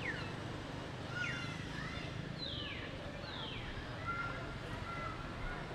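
High-pitched animal calls: a handful of quick calls that each fall steeply in pitch, with a few short level whistles between them, over a low steady hum.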